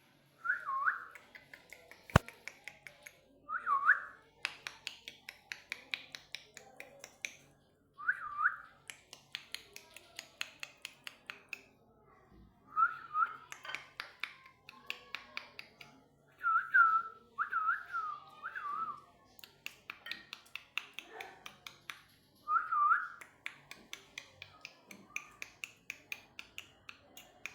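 A parrot whistling short swooping notes every few seconds, with runs of rapid sharp clicks between the whistles. A single sharp snap about two seconds in.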